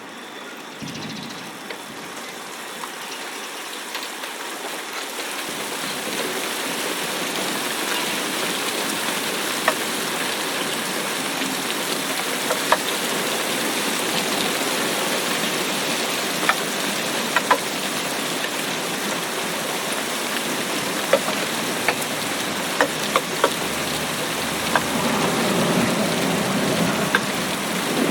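Steady rain falling, fading in over the first several seconds, with scattered louder drops ticking on a surface. A low rumble of thunder starts to build near the end.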